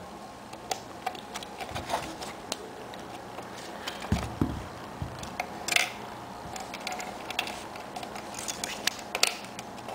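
Hands handling a small plastic digital alarm clock and its parts: scattered light plastic clicks and taps, a dull knock about four seconds in and a short scrape nearly six seconds in.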